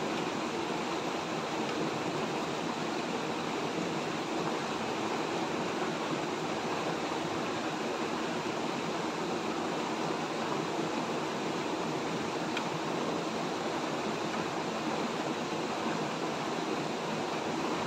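Shallow rocky mountain stream rushing over stones, a steady, even rush of water.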